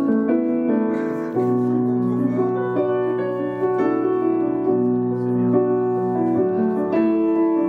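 Instrumental backing music led by piano, playing held chords that change every half second or so.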